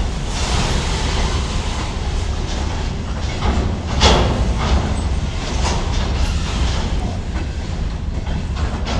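Freight wagons rolling past, their wheels knocking over the rail joints in uneven clacks above a continuous low rumble; the loudest clack comes about four seconds in.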